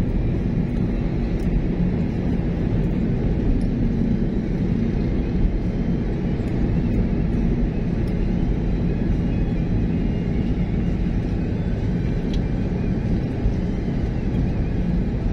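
Steady low rumble of a car's engine and tyres on the road, heard from inside the cabin while driving at a constant pace.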